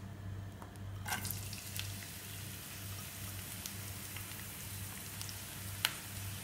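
Sliced shallots going into hot coconut oil, which starts sizzling about a second in and keeps up a steady sizzle with scattered small crackles.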